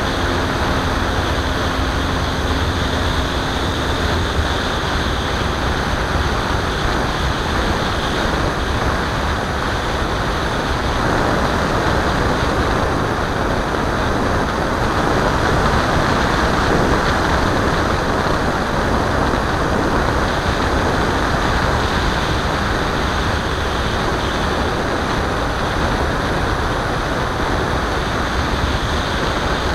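Steady rush of airflow over the onboard camera of a radio-controlled model airplane in flight, swelling a little midway. A faint hum is under it for the first few seconds and then drops away.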